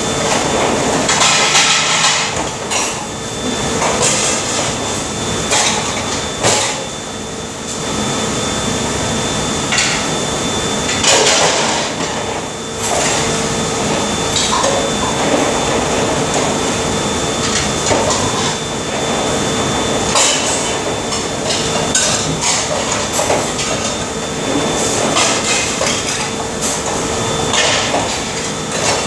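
Hand dishwashing in a stainless steel sink: dishes and utensils clattering and knocking again and again, over a steady machine hum.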